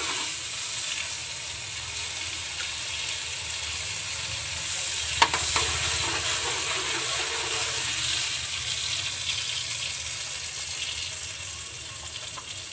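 Margarine melting and sizzling steadily in very hot oil in a wok, stirred with a spatula, with one sharp clink of the spatula on the pan about five seconds in.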